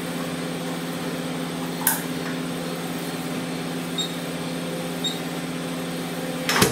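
Perten RVA StarchMaster 2 starch viscosity analyser humming steadily while its sample canister is seated, with a sharp click about two seconds in and two short electronic beeps around four and five seconds. Near the end comes a clatter as the motor tower is pressed down onto the canister to begin the test.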